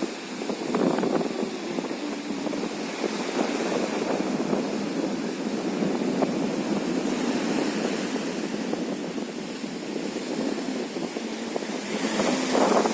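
Wind blowing across the microphone at a windy shore, a steady rushing noise that grows louder near the end.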